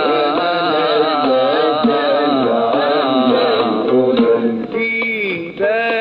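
Egyptian song with a man's voice singing a long, wavering melodic line over oud, with a riq frame drum keeping time. Near the end the voice drops out briefly, leaving separate plucked oud notes.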